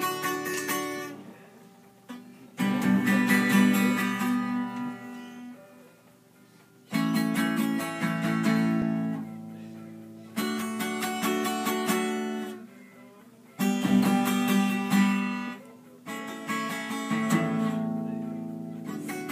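Acoustic guitar strummed in single chords. Each chord is struck suddenly and left to ring out and fade, one every three to four seconds.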